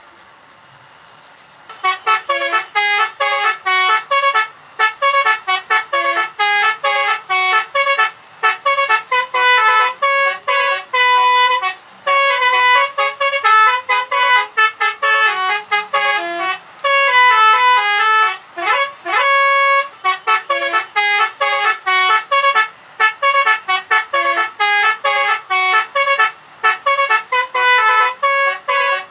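Indonesian 'telolet' multi-tone bus horn playing a fast tune of short notes, starting about two seconds in, with a few rising swoops a little past the middle.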